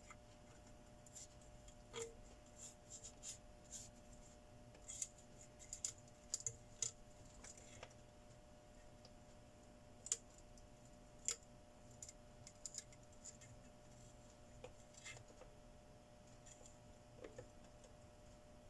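Near silence broken by scattered small clicks, ticks and light scrapes, as of hands handling tools and parts, with a faint steady hum behind.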